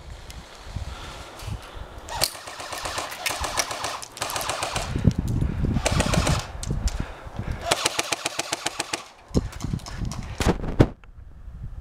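Airsoft guns firing several bursts of rapid automatic fire, each a fast run of sharp clicking shots, with pauses between the bursts.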